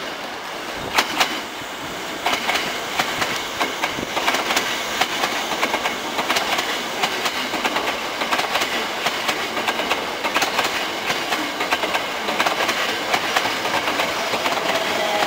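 Hankyu 8000 series electric commuter train running past as it pulls into the station. Its wheels clack over rail joints and points in a rhythmic run of clicks over a steady rumble. Near the end a pitched whine from the running gear sets in as it brakes.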